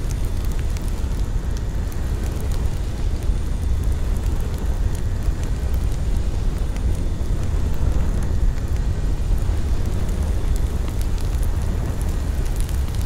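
Steady low rumbling noise with scattered faint clicks.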